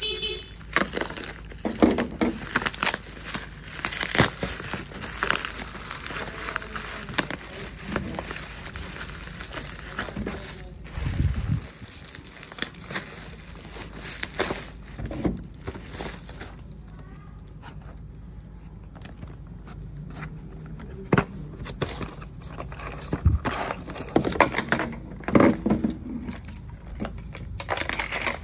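Plastic wrapping crinkling, rustling and tearing as a parcel in black plastic and clear film is cut and pulled open, busiest in the first half; later, quieter handling with a few rustles and sharp knocks near the end.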